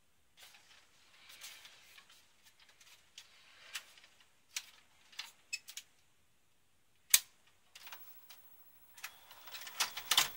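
Handling noise from a VCR and a VHS cassette: scattered light clicks, taps and rattles of hard plastic, with one sharp click about seven seconds in and a busier run of clicks and knocks near the end.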